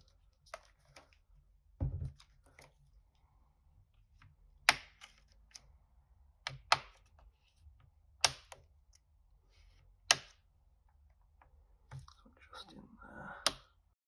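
Snap-in clips of a Lenovo ThinkPad T14 Gen 2's thin plastic base cover popping loose as a pry tool is worked along the edge: about five sharp snaps a second or two apart, with fainter clicks between them and a short rubbing noise just before the last snap.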